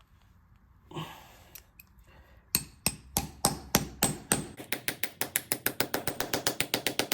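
Hammer striking a punch to drive out a ground-off link pin on an old motorcycle chain, sharp metallic ringing taps. It starts at a few blows a second and becomes rapid, even tapping from about halfway in.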